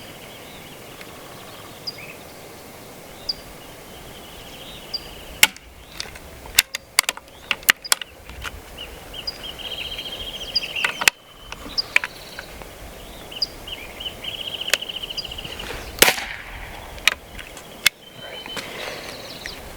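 Benjamin Marauder .22 PCP air pistol being handled and fired, giving a run of sharp clicks and cracks. The loudest come about five and a half and sixteen seconds in, with a quick cluster of clicks in between. High trilling calls sound in the background.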